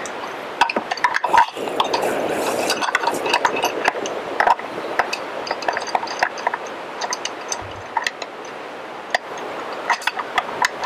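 Pipe wrench working a gate hinge screw bolt into a wooden post: irregular metal clinks and clicks as the wrench grips, slips and is reset on the bolt, over a rasping scrape of the turning.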